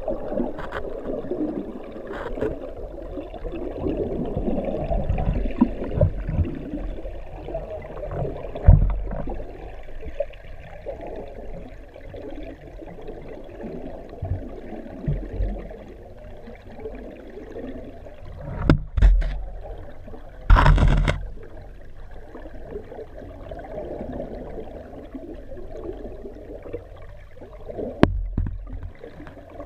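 Steady rushing and gurgling of water flowing through a fish-ladder pool, recorded underwater by a GoPro in its housing, with a low rumble. A few low thumps come through, and there is one louder knock about twenty seconds in.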